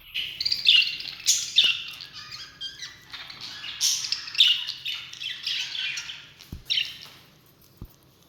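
Birds chirping in quick, high-pitched bursts, dense for the first seven seconds, then fading.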